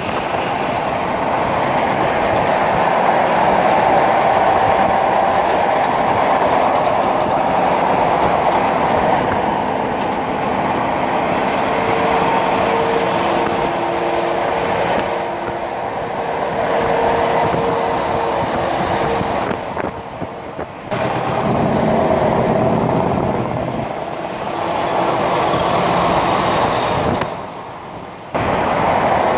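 Tractor-trailers passing on a highway: a steady loud wash of tyre and engine noise with a faint hum in the middle. The sound drops away briefly twice near the end.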